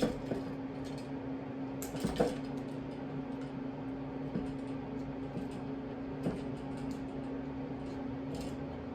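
Small sharp clicks and handling noises from wire strippers taking the insulation off the white neutral conductors of 14-gauge cable, a few scattered ticks with the loudest about two seconds in, over a steady low hum.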